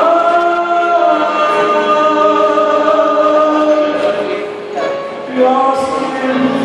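Man singing a slow ballad into a microphone over musical accompaniment, holding long notes, with a brief breath-like dip about five seconds in before the next phrase.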